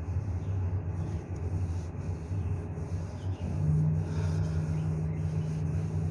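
Kerokan scraping: a hard edge rubbed over the skin in repeated strokes, over a steady low hum.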